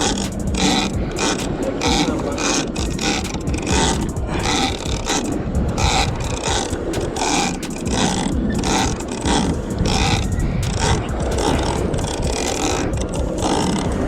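Big-game fishing reel being cranked hard against a fish, its gears clicking in a steady rhythm of about two strokes a second, over a constant low rumble.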